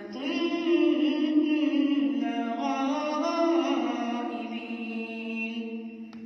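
A boy's voice reciting the Quran in melodic tajweed style, gliding between notes and then drawing out a long held note that fades away near the end.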